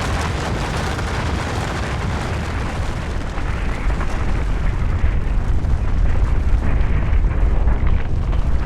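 Avalanche of snow and rock: a continuous deep rumble with a crackling hiss above it, the low rumble growing heavier in the second half as the hiss thins out.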